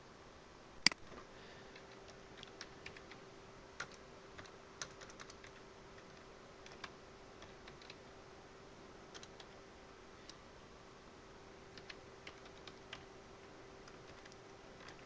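Computer keyboard typing, scattered keystrokes in short irregular runs, with one much louder sharp click about a second in, over a faint steady hum.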